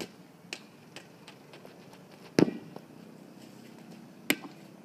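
A rubber playground ball being kicked: one loud, dull thump about two and a half seconds in, then a sharper knock near the end as the ball strikes something. A few faint taps come in between.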